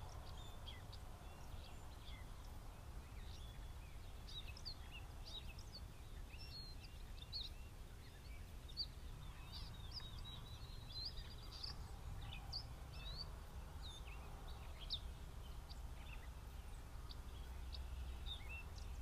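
Small songbirds chirping and calling on and off, many short high chirps and quick whistled sweeps, over a low steady rumble.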